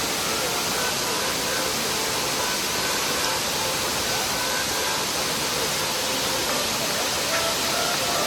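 Steady rushing of a waterfall, an even wash of water noise that does not let up.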